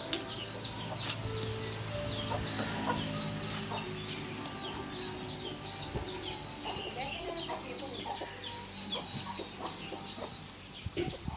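Birds chirping: many short, high, falling notes repeating throughout, over a faint low steady hum.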